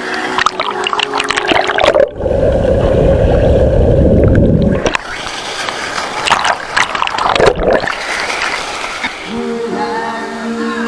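Water splashing close to the microphone, broken in the middle by about three seconds of loud, muffled low rumbling. Background music fades in near the end.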